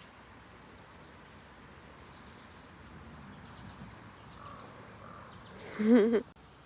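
A stray kitten's two faint meows, followed near the end by a short, loud, wavering voice.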